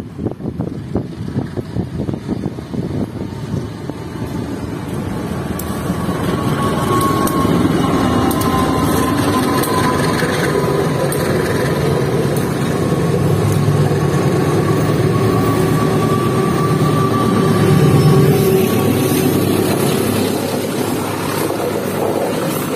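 Two diesel-hauled passenger trains passing each other on double track. Locomotive engines run and steel wheels roll on the rails, getting louder as the trains come close, with the coaches rolling past near the end.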